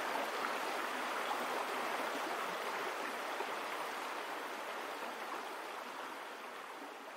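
A steady rushing noise, with no tones in it, that slowly fades out.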